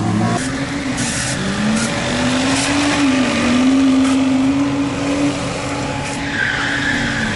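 A car drifting on the track: its engine held at high revs, the pitch wavering up and down and falling away near the end, over the hiss of tyres sliding on the cobbles.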